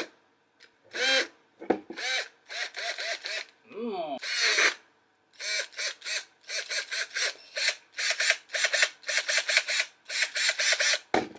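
Ingco cordless drill's 550 motor pulsed by many short trigger pulls in quick succession. Each pull gives a brief, rough whir that spins up and cuts out, and one a few seconds in winds down. The motor has died and smokes from its vents as it runs.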